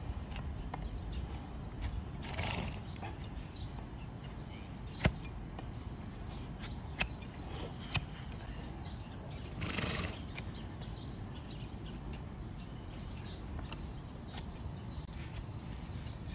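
A farrier's large hoof blade cutting through an overgrown donkey hoof: a few sharp knocks of the blade, about five, seven and eight seconds in, and two longer, noisier shaving sounds as the horn is pared away.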